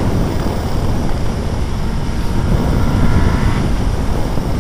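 Suzuki B-King's 1340cc inline-four engine running at highway speed under heavy wind rush on the microphone, a steady low rumble.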